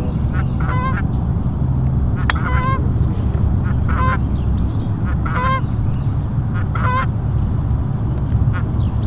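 Goose honking: a loose string of short, clipped honks, each rising slightly at the end, coming every second or so over a steady low rumble.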